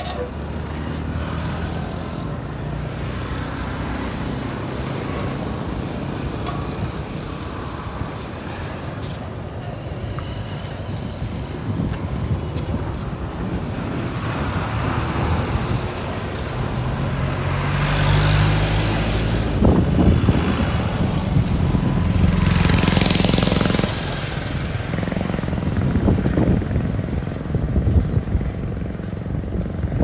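Truck engine running with a steady low hum, growing louder in the second half as a vehicle passes close.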